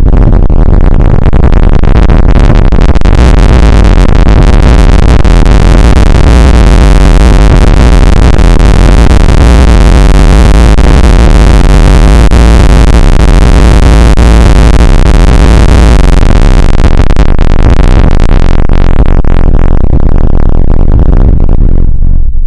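Loud, harsh synthesized noise: a dense, distorted wall of sound with heavy bass. Its high end thins out over the last few seconds, and it cuts out abruptly right at the end.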